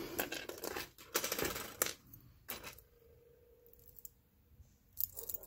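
Metal costume jewelry clinking and rattling as pieces are picked out of a heap on a wooden tabletop: a dense run of clatter over the first two seconds, then a few more clinks near the end.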